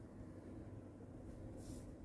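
Quiet room tone with a low steady hum, and a brief soft rustle near the end.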